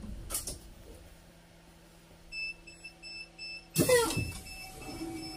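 Electronic beeper sounding a high, repeated beep about three times a second. A loud, brief sound with a falling pitch cuts in about four seconds in, and the beeping carries on more faintly behind it.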